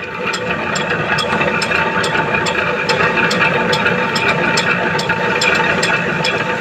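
A machine tool running steadily with a whine and a regular tick about three times a second.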